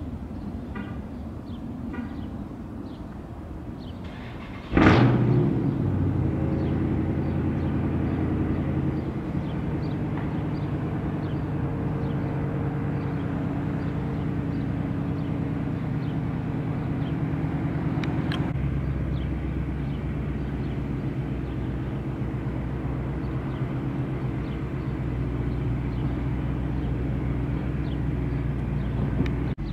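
A car engine starts with a sudden burst about five seconds in, then runs steadily at idle. About two-thirds of the way through a click is heard and the idle takes on a deeper rumble.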